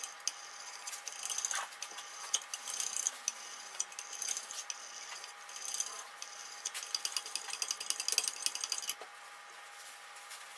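Fine 1200-grit ceramic stones of a Wicked Edge guided sharpener scrubbing back and forth along a steel knife blade: quick runs of light, high scraping and clicking. The scraping stops about nine seconds in.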